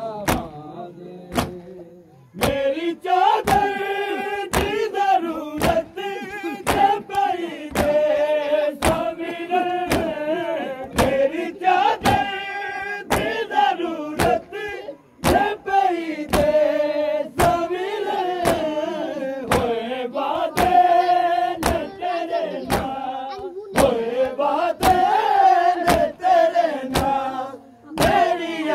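Men's voices chanting a Punjabi nauha (mourning lament) together, over hand matam: palms striking chests in a steady, even beat. The beats run throughout, and the chanting comes in about two seconds in.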